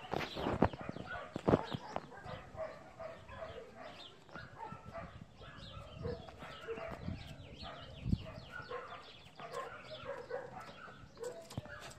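Dogs barking in short bursts: twice within the first two seconds, then once about eight seconds in. Bird calls, chickens among them, chatter in the background throughout.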